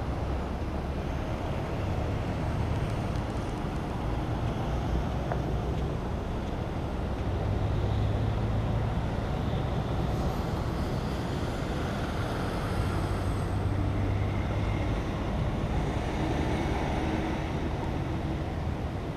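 Steady road traffic noise from vehicles passing on a highway, with a low rumble that swells several times as vehicles go by.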